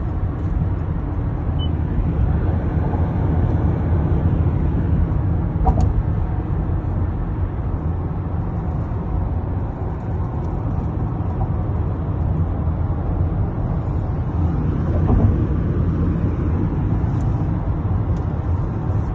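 Steady road and tyre rumble inside a moving Toyota Camry 3.5, with a few brief creaks or knocks, about 6 and 15 seconds in. This is the creaking the owner likens to a medieval cart and takes for a build defect.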